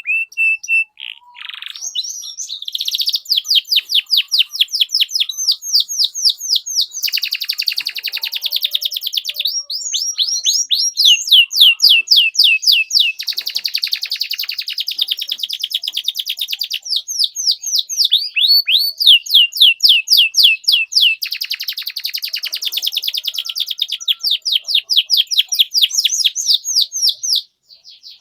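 Domestic canary singing a long, unbroken song of rapid "cuit cuit" chirp trills, several notes a second, moving through a series of changing phrases with some buzzier passages. It stops abruptly near the end.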